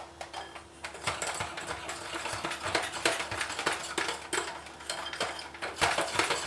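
Bosch 450 W electric hand mixer running with its beaters in a glass bowl, whipping milk and vanilla cremole powder. It starts about a second in, and the beaters clatter irregularly against the glass.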